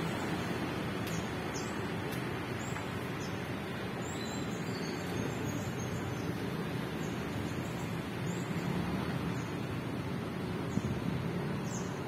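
Street traffic ambience: a steady wash of passing vehicles on a town road.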